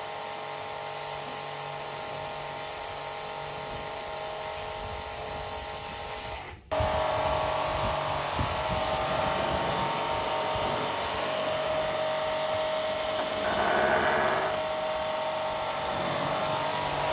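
Electric pressure washer (Cazar KS-CW140, 2400 W, 130 bar) running steadily with a whine, its water jet hissing onto a car's paintwork and windscreen. About six and a half seconds in the sound suddenly gets louder.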